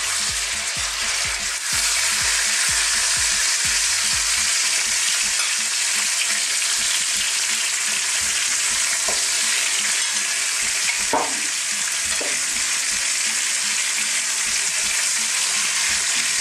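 Marinated chicken pieces frying on a high heat in hot oil in a wok: a steady, loud sizzle. A fork turns and lifts the pieces, with a few low knocks in the first few seconds and some brief scrapes against the pan later on.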